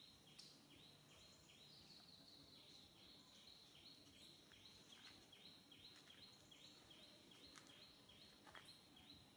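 Near silence, with a faint high-pitched chirping that repeats evenly about three times a second.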